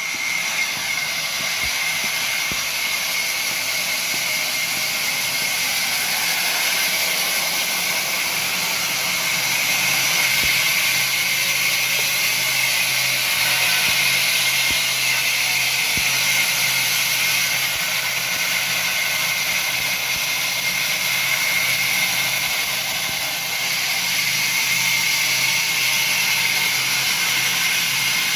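Wood-cutting machine running steadily: a continuous hiss with a constant high whine and a faint low hum.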